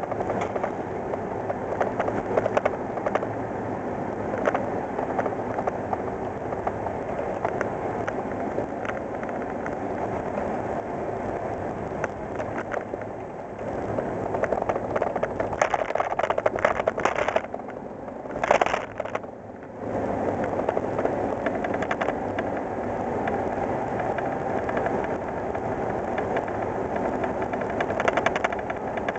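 Cab interior of a 1987 Ford Ranger pickup with its 2.9 L Cologne V6 at road speed: steady engine, road and wind noise, with frequent small clicks and rattles. The noise drops away briefly about 18 seconds in, then returns.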